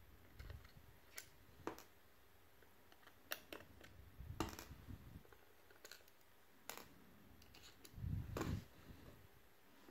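Faint, scattered clicks and taps from handling a small screwdriver, tiny screws and the plastic casing of a sat-nav, with a duller knock about eight seconds in.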